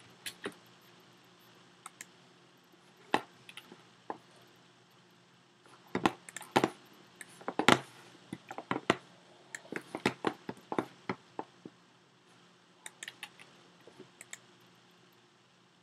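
Computer keyboard keystrokes and mouse clicks, scattered and irregular in small clusters, over a faint steady hum.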